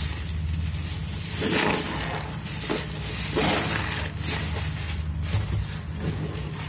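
Thick yellow foam sponges, cut from mattress foam and loaded with soap, squeezed by rubber-gloved hands in a steel sink. Wet squelches and crackling suds come about once a second over a steady low hum.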